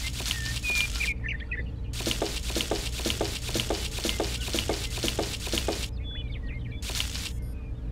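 Birds chirping over a steady low hum, broken by long stretches of rapid clicking or rattling; the clicking is the loudest sound.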